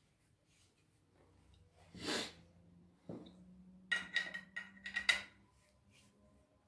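A sharp breath through the nose, then a few short creaks and squeaks as a screw is turned in by hand with a screwdriver through a wooden handle block and into a hole in the steel blade drilled slightly smaller than the screw, so the thread bites.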